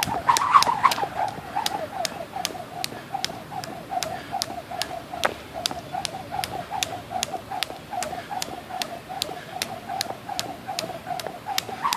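Jump rope slapping the ground in a steady rhythm, about three sharp slaps a second, with a softer pulsing sound in step with each turn.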